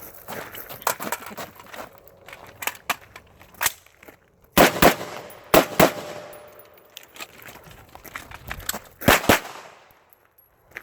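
Gunshots fired as three quick pairs, two pairs close together about halfway through and one pair near the end, each shot sharp with a short ring after it. Fainter knocks and clicks come before them.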